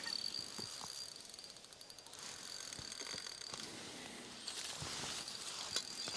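Spinning reel being cranked to retrieve a pike lure: a thin, fast whirring of the reel's gears in three spells, with short pauses between them, and a sharp click near the end.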